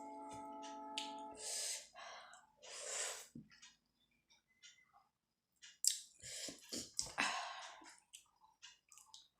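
Close-miked eating of chicken momos: short wet chewing clicks, breaths and slurp-like swells, with a quiet gap near the middle. A steady held tone with several partials stops about one and a half seconds in.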